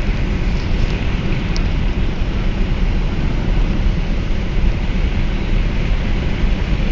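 Steady low rumble and hiss of a car driving on the highway, with a few faint ticks in the first second and a half.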